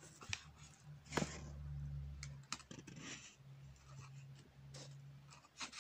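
Faint scattered clicks and small taps, with a faint low hum that comes and goes.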